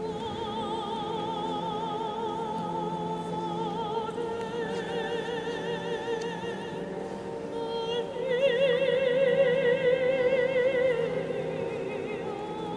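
Male choir singing slow, sustained chords, with a high voice in wide vibrato riding above them and swelling loudest from about 8 to 11 seconds in, all echoing in a cathedral.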